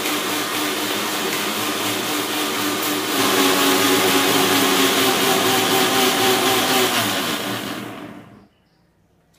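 Bosch 1000-watt mixer grinder running, wet-grinding cashews, almonds, raisins, ginger and tomato with a little water. It gets louder about three seconds in, then is switched off and winds down to a stop near the end.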